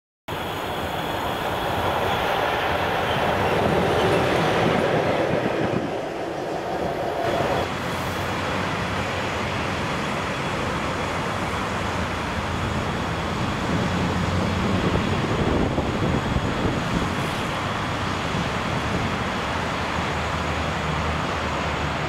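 Steady rumbling noise of an electric train approaching along the line. It is louder for the first seven or so seconds, and a low hum strengthens near the end.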